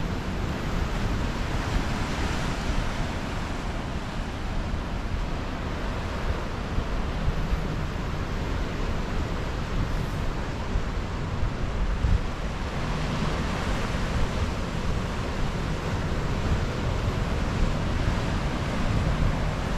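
Ocean surf breaking and washing over rocks, a steady rush that swells up about two seconds in and again about two-thirds of the way through, with wind buffeting the microphone.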